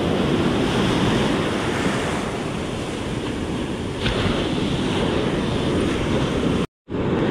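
Ocean surf breaking and washing up the beach in foam, with wind buffeting the microphone. The sound cuts out completely for a split second near the end.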